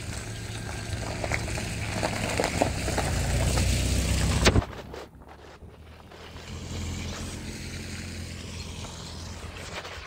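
Car engine and tyre noise on a wet road: a rushing sound that grows louder and cuts off suddenly about halfway through, then a steady low engine hum from a car approaching.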